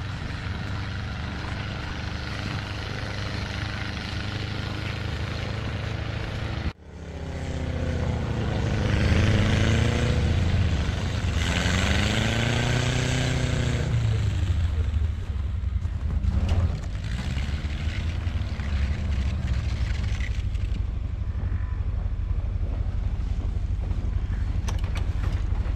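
Side-by-side UTV engine running as it drives through snow. The engine hums steadily at first. After a cut, its pitch rises and falls several times as the throttle changes, then settles.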